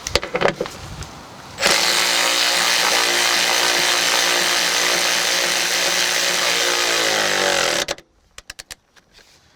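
Cordless power gun running for about six seconds as it drives a seat belt bolt home. The pitch sags just before it cuts off, with a few handling clicks before it starts.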